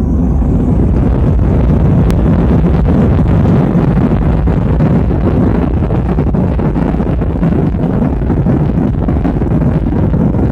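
Jet airliner's engines at takeoff power during the takeoff roll, heard from inside the cabin as a loud, steady rush with a deep rumble.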